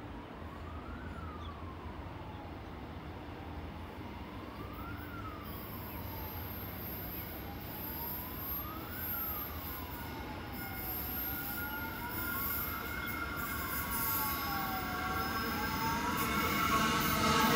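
An emergency vehicle siren wailing, its pitch rising and falling slowly about every four seconds, over the rumble of an approaching Queensland Rail electric multiple unit train that grows louder toward the end.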